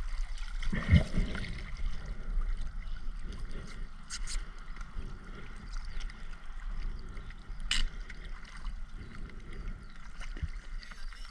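Water gurgling and sloshing around the camera during a dive, with a couple of sharp clicks.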